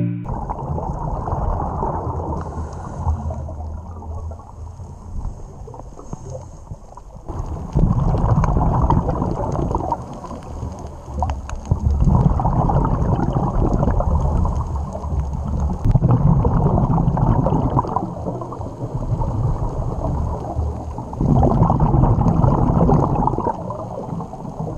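Scuba diver breathing on a regulator, recorded underwater. There is a low rush of water noise, then, about eight seconds in, four louder bubbling exhalations follow at roughly four-second intervals.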